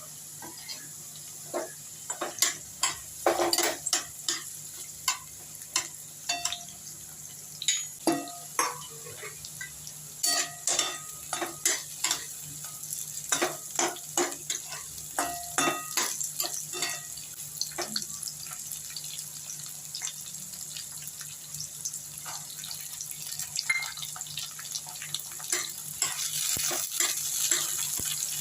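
A spoon stirring and scraping in a pan of frying vegetables and masala, with many sharp clinks and knocks against the pan over a steady sizzle. The clinks are frequent in the first two thirds and thin out toward the end.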